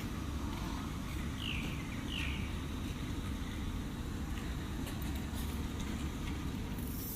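Steady low engine rumble of a road-line marking machine running. Two short high falling chirps come about a second and a half and two seconds in.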